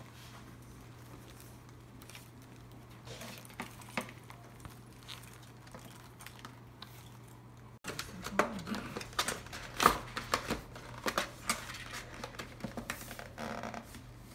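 Steady low hum with a few faint handling clicks; about eight seconds in, frequent crinkles, taps and rustles of paper and a cardboard gift box being folded and pressed shut as a purchase is wrapped.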